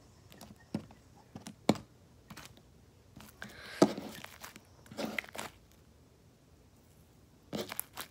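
Homemade slime being squeezed and kneaded by hand on a table, giving scattered sticky pops and clicks in short clusters a second or two apart, the loudest about four seconds in.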